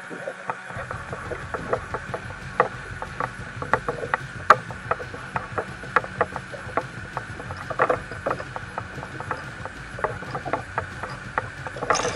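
A fishing reel being cranked while a hooked chub mackerel is reeled in, with irregular light clicks, over water lapping against the kayak hull. A louder rush of noise starts right at the end.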